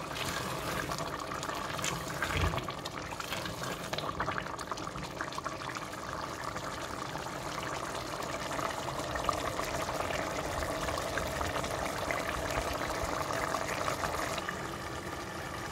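Goat stew bubbling steadily at a boil in a pot, being stirred with a silicone spatula; the liquid is being boiled down to thicken the gravy.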